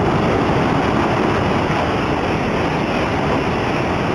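E3 series R1 set coupled to an E2 series Shinkansen passing at speed, a loud, steady rush of air and running noise that eases slightly near the end as the last cars go by.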